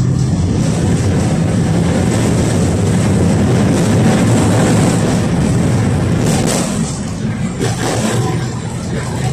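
Inside a KTM-5M3 (71-605) tram under way: the steady low hum of its DK-259G3 traction motors and wheels running on the rails, with a few clacks and rattles about six to eight seconds in.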